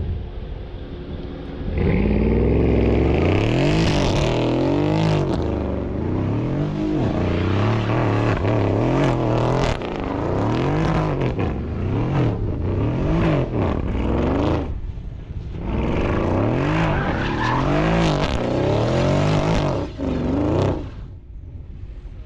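Mercedes-Benz E63 AMG's V8 revving up and down over and over, about once a second, with tyres squealing as the car spins donuts on asphalt. The revving starts about two seconds in and dies down near the end.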